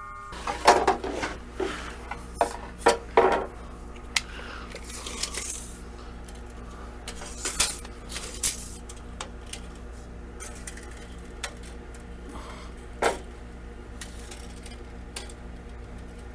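Wooden strips knocking and clattering against each other and the miter saw as they are handled and set in place: a scatter of sharp knocks, thickest in the first few seconds, with one more loud knock later on. A low steady hum runs underneath.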